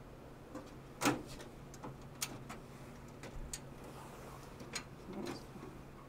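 Scattered light clicks and taps from handling wiring and parts inside a fire alarm control panel, over a steady low hum.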